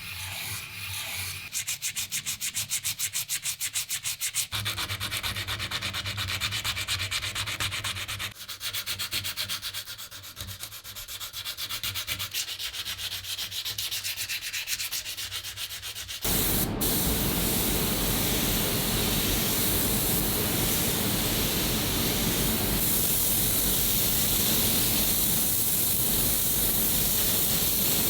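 Sanding, with a fast, even rasping rhythm. About 16 seconds in it cuts to a steady, loud hiss with a low rumble beneath it.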